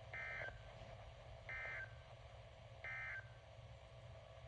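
NOAA Weather Radio's SAME end-of-message code heard through a Midland weather alert radio's speaker: three short bursts of digital data tones, each under half a second and about a second and a half apart, marking the end of the severe thunderstorm warning broadcast.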